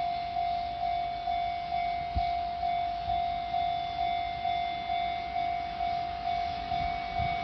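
Japanese level-crossing warning bell ringing electronically, a single repeated tone struck about twice a second with each strike fading, signalling that a train is approaching. A low thump sounds about two seconds in and again near the end.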